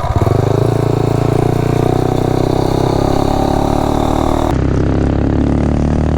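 Tillotson 263 single-cylinder minibike engine running hard. The throttle opens right at the start and the revs then hold steady, and the sound changes about four and a half seconds in. The engine was just rejetted to a smaller main jet and pulls without its earlier stutter.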